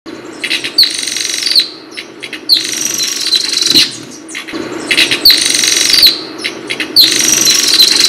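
Bird sound effect: high chirps with fast fluttering wing beats in four bursts about two seconds apart, over a steady low hum.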